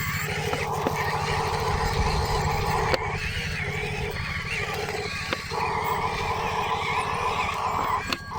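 Radio-controlled construction models working: a steady low, pulsing engine-like rumble with a motor or hydraulic whine that cuts out and comes back several times.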